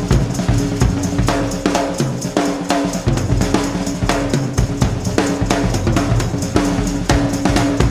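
Music with a prominent drum kit, bass drum and snare, keeping a steady driving beat.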